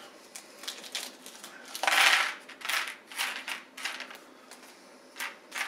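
A small plastic bag crinkling as it is handled and opened, loudest in one half-second rustle about two seconds in, with scattered light clicks as small game cubes are tipped out of it onto a plate.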